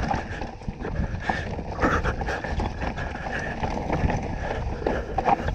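2018 Canyon Torque CF9 Pro mountain bike descending a rough dirt trail: steady tyre noise over dirt and rock, with frequent knocks and rattles as the bike hits bumps.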